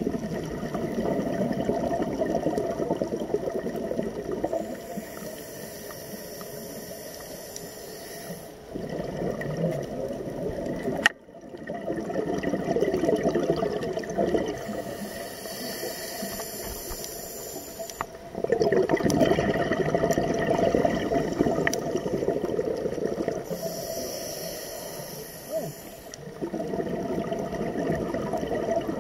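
Scuba regulator breathing heard underwater in slow, regular cycles. Each cycle has a high hissing inhale through the demand valve, then a longer rush of exhaled bubbles. There is one sharp knock about eleven seconds in.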